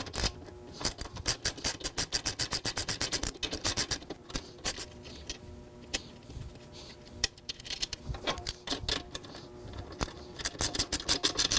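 Ratchet wrench clicking in fast, even runs as a bolt and flange nut are tightened, pausing in the middle with scattered clicks and starting a second run near the end.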